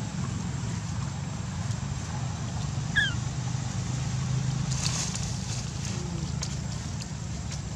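A steady low rumble, like wind on the microphone, with faint scattered clicks of rustling and one short, high squeak that falls in pitch about three seconds in.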